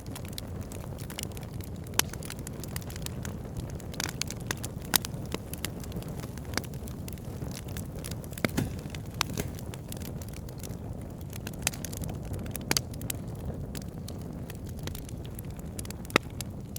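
Campfire burning: a steady low rumble of flames with irregular sharp crackles and pops of burning wood, a few louder snaps scattered through.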